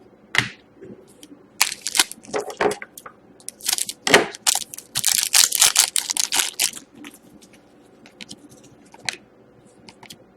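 Trading cards being handled and flipped through: a run of short, sharp rustles and snaps of card stock, densest in the middle.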